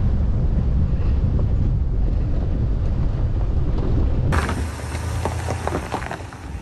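Wind buffeting the microphone of a camera mounted on a pickup's hood, over the low rumble of the truck driving on a dirt road. About four seconds in, it switches to a closer recording of a Ram Rebel pickup crawling up a rocky slope: its engine hums low under scattered crunches and clicks of rock.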